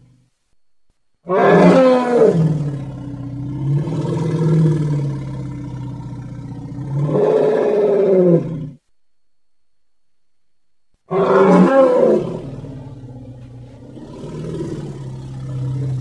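Steppe mammoth sound effect: two long, low animal calls. Each opens loud with a cry that falls in pitch and then carries on as a drawn-out low call; the first lasts about seven seconds and swells again near its end, and the second starts about eleven seconds in.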